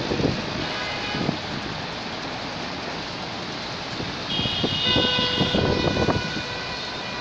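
Wind gusting on the microphone over a steady outdoor rumble. About four seconds in, the high whine of an arriving jet airliner's engines comes in as several steady tones and holds.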